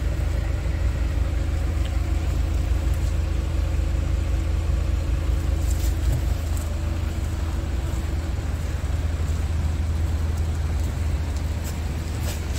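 Scania R450's inline-six diesel engine idling steadily with a low rumble.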